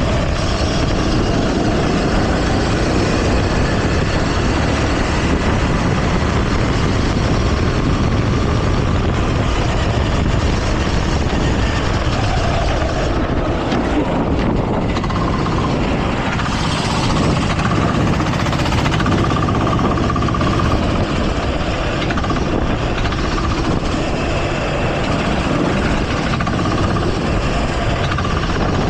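Go-kart engine running hard on track, its revs rising and falling, under a dense steady noise.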